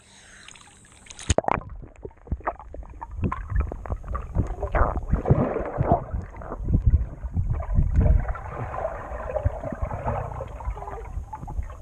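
Muffled underwater sound of a swimming pool heard with the microphone submerged: bubbling and gurgling water with dull knocks and a low rumble from a swimmer kicking with fins. About a second in there is a sharp click and the sound turns dull as the microphone goes under the surface.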